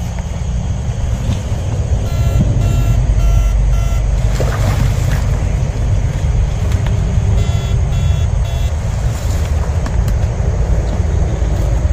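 Steady low rumble and swishing as someone wades through a dense water-hyacinth marsh. Three times, about two seconds in, around eight seconds and near the end, a run of short, identical beeps sounds at roughly three a second.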